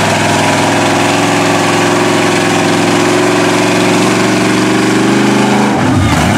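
Engine of a lifted Chevrolet mud truck on big tyres pulling through a mud bog, held at a steady, loud pitch under load as the tyres churn. Near the end the steady note breaks up into an uneven, wavering sound.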